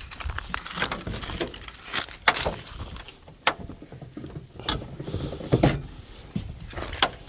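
Scattered clicks and knocks from someone working a car's controls and fittings: about half a dozen separate sharp knocks spread over several seconds.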